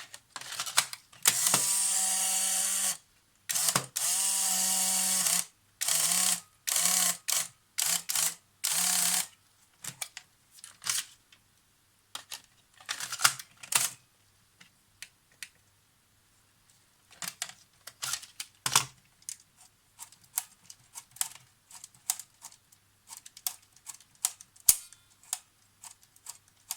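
Polaroid instant camera's drive motor and gear train running in two steady runs of about two seconds each, then four short runs, followed by scattered small clicks. A gear slips in the gear train, which the owner traces to a broken tooth on the riveted gear.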